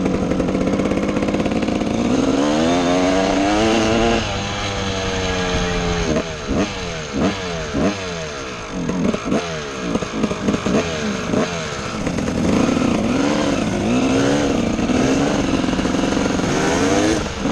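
Dirt bike engines running hard, heard close from on the bike: the revs climb about two seconds in, then rise and fall quickly again and again, then swell up and down more slowly with a last climb near the end.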